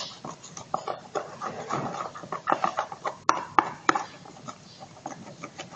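Slime being stirred with chopsticks in salt water, making irregular wet squelches and clicks as it starts to set.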